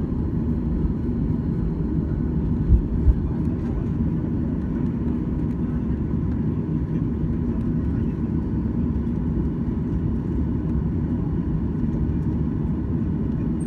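Boeing 737-800's CFM56 engines at taxi power, heard from inside the passenger cabin as a steady low rumble with a faint hum. Two brief thumps come about three seconds in.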